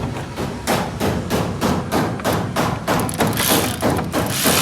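Rapid repeated knocks, about four a second, like hammer blows on metal. A loud hissing rush follows them near the end.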